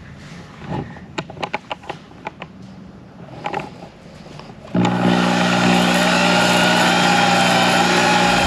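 Electric drill spinning a Flex-Hone ball hone in a cylinder bore of an LS V8 block, honing the walls to restore the crosshatch for new piston rings. There are a few light clicks at first, then about five seconds in the drill starts running steadily and much louder.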